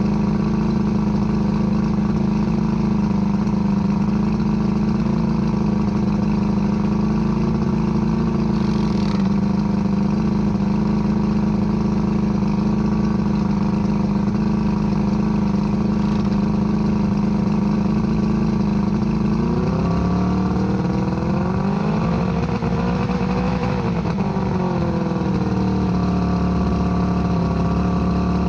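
1978 Johnson 115 hp V4 two-stroke outboard engine running steadily. About two-thirds of the way in it is revved up for a few seconds, then eased back down to a steady run.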